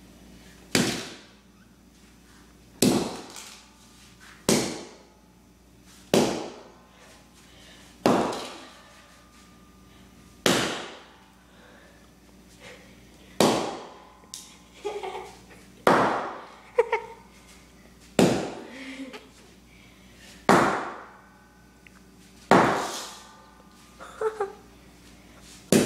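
Sledgehammer striking a mobile phone again and again: about a dozen heavy blows spaced roughly two seconds apart, each a sharp crack that dies away quickly, with a few smaller knocks between some of the blows.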